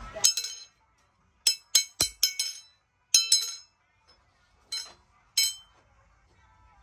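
Blacksmith's hammer striking steel on an anvil: about nine ringing metallic blows in irregular groups, each ring fading quickly.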